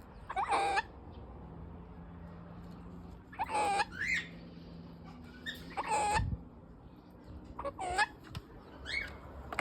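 Pet cockatoo making about five short calls a second or two apart, each a brief gliding cry with a couple of quicker notes.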